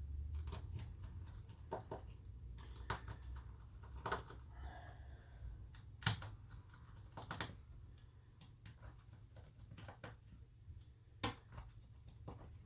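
Small screwdriver and tiny phone screws clicking and tapping as the screws are taken out of a Samsung Galaxy S8 and set down: scattered light clicks, with sharper ones about halfway and near the end.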